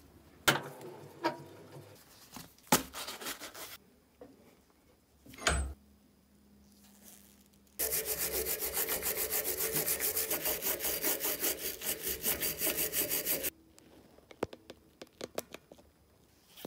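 Hand wire brush scrubbing the steel ring end of a Hazet 630 double ring spanner clamped in a vise: rapid, even back-and-forth strokes that start about eight seconds in and stop suddenly some five seconds later. A few scattered knocks and clicks of handling come before and after.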